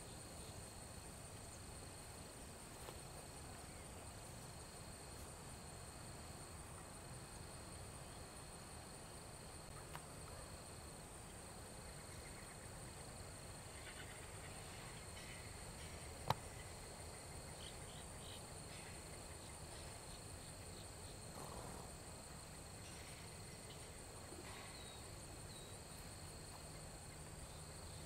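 Faint, steady high-pitched insect chorus droning throughout a quiet pasture. A single sharp click about halfway through.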